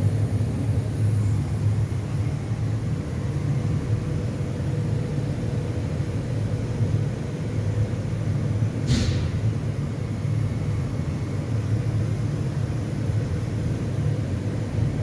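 Steady low rumble and hum of a Bystronic Bysprint laser cutting machine, retrofitted with a 6 kW fiber laser, cutting 15 mm mild steel. A brief hiss comes about nine seconds in.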